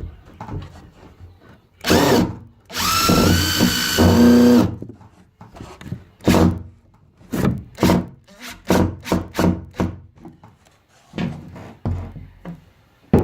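A cordless drill-driver gives a short burst, then runs for about two seconds, its pitch stepping up partway, as it drives a screw for the outlet flange. A string of short, irregular knocks and clicks follows.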